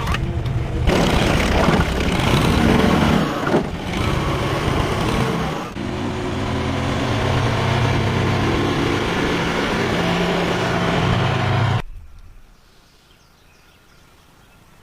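A motor running loudly through a series of quick cuts, settling into a steady low hum for about six seconds, then cutting off suddenly about twelve seconds in, leaving faint background noise.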